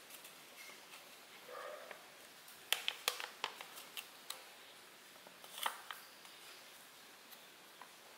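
A sheet of paper being creased and folded by hand: a quick run of sharp paper crackles a little under three seconds in, and another crackle past the middle, against quiet room tone.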